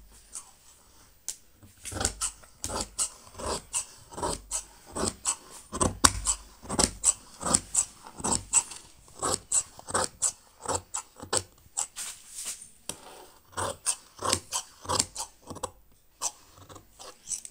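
Large steel tailor's shears cutting through cloth: a steady run of crisp snips, about two a second, stopping shortly before the end.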